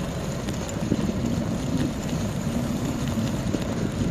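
Steady wind rush on the microphone of a phone carried on a moving bicycle, over a low, even rumble.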